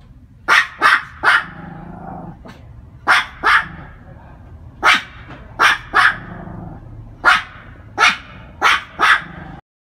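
Pomeranian barking at a cat: about a dozen sharp, high-pitched barks in quick runs of two or three.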